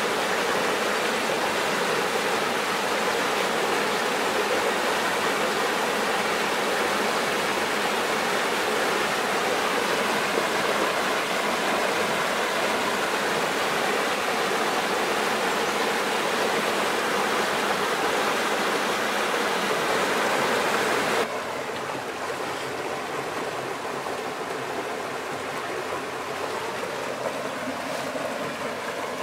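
Small rocky stream rushing over boulders in a steady white-water rush. About two-thirds of the way through it cuts suddenly to a quieter, softer flow from a small cascade spilling into a pool.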